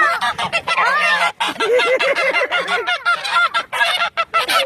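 Geese honking over and over, many calls in quick succession and overlapping.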